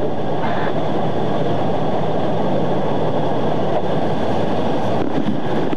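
Steady, unbroken vehicle noise, like the patrol car's engine idling as picked up from inside it.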